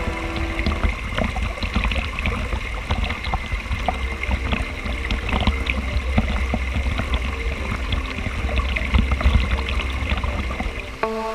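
Mountain stream rushing and splashing over rocks in a small cascade, heard close to the water: a steady rush with a deep rumble and many small splashes.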